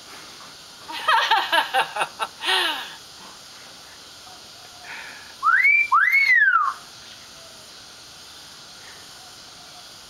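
Common hill myna calling: a quick run of pitched chattering notes about a second in, then two loud whistles a little past the middle, each rising and then falling in an arch.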